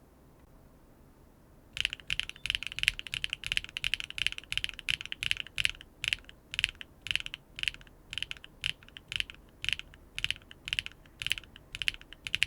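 Typing on a mechanical keyboard fitted with linear switches: after a short pause, a quick run of keystrokes, then slower, evenly spaced key presses about two a second.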